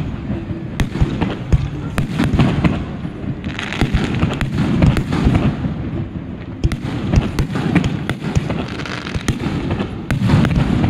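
Aerial fireworks bursting, with many sharp bangs and crackles in quick, irregular succession.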